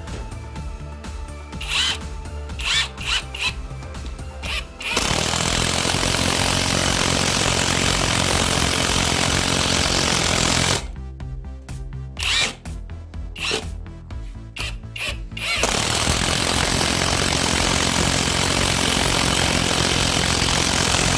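Cordless impact wrench driving a long screw into a wooden beam: a few short bursts at first, a long steady run of rapid impacts from about five seconds in, short bursts around the middle, then a second long run to drive the screw home near the end.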